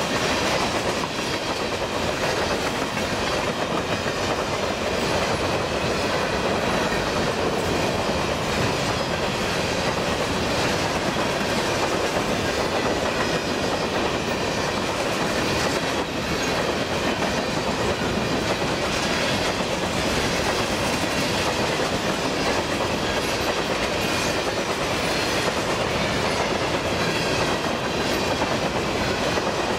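A string of empty covered grain hopper cars rolling past at speed: steel wheels on rail making a steady rumble and clatter.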